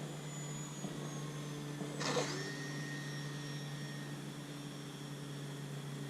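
Electric motor and propeller of a radio-controlled Cessna 182 model airplane in flight, a steady hum with a thin whine that sags slightly in pitch. About two seconds in comes a brief rushing burst, and after it the whine steps up to a higher pitch.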